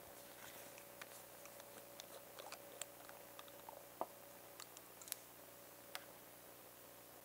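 Faint, scattered small clicks and taps of a green glass dropper bottle being handled as its metal-collared dropper cap is unscrewed and the glass pipette drawn out, over quiet room tone.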